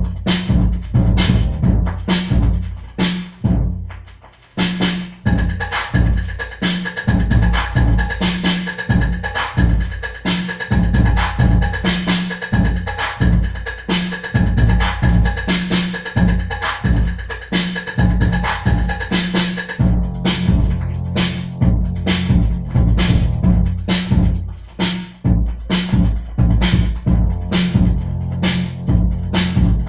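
Funk melody dance mix playing, a drum machine beat with a strong pulse; the beat drops out briefly about four seconds in and comes back, with a held high tone over it until about twenty seconds in.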